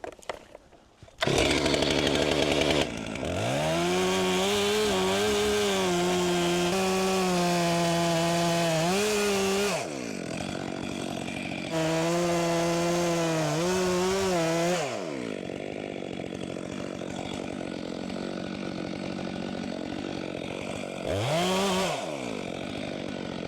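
Two-stroke chainsaw cutting the notch into a maple's trunk. It starts about a second in, revs up and holds at full throttle under load with a wavering pitch, drops back, then cuts again for about three seconds. After that it falls back to a lower running speed, with one short blip of the throttle near the end.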